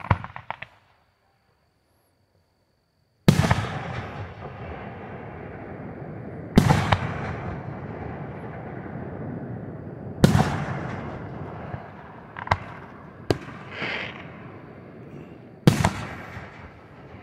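Aerial fireworks shells bursting: a brief crackle, about three seconds of silence, then four loud booms a few seconds apart, each followed by a long fading rumble, with two smaller sharp pops between the last two.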